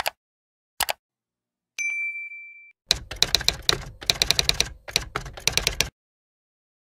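End-screen sound effects: two sharp mouse clicks under a second apart, then a single bell ding that rings out for about a second, followed by about three seconds of fast keyboard typing clatter.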